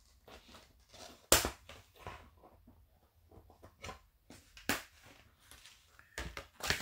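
Handling noise from a plastic action-figure sword: a few sharp clicks and knocks, the loudest about a second in and another near five seconds, with softer ticks between.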